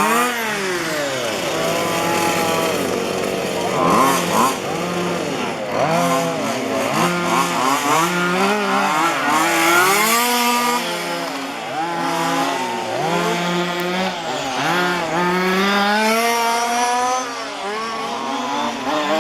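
Several 1:5 scale petrol RC cars' small two-stroke engines revving up and dropping back over and over as they race, their pitches overlapping and crossing.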